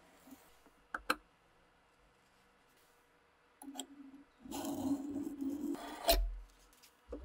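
Steel vernier caliper clicking twice about a second in, then its jaw scraping along the steel axe head for about a second and a half as a marking line is scribed on the blade, ending in a sharp knock, with another knock near the end.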